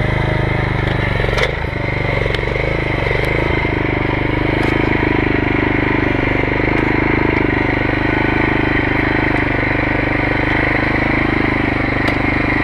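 Erling E1500 micro excavator's engine running steadily, with a few sharp clanks spread through.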